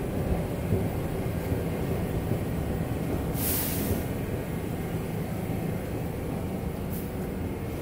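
Steady low rumble of subway trains standing at a platform with their doors open. A short burst of air hiss comes about three and a half seconds in, with a fainter one near the end, typical of a train's air brakes venting.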